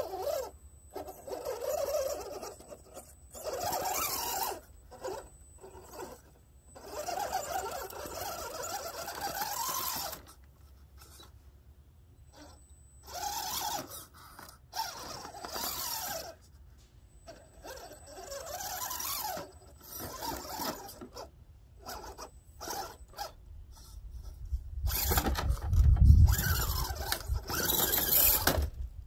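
RC scale rock crawler's small electric motor and geartrain running in short stop-start throttle bursts, the pitch rising and falling within each burst. Near the end, a louder low rumble lasting a few seconds.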